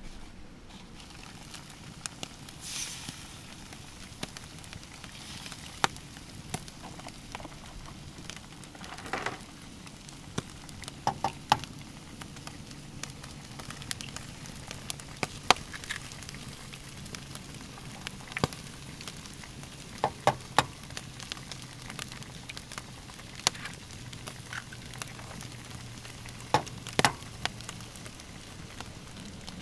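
Eggs frying with a steady sizzle in a frying pan over a wood fire, with sharp clicks and taps scattered throughout, some in quick pairs, as eggs are cracked and dropped into the pan.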